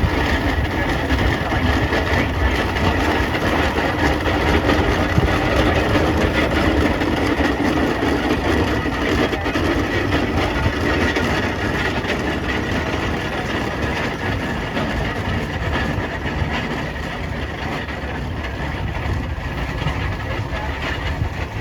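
Steam traction engines running, a steady continuous mechanical noise.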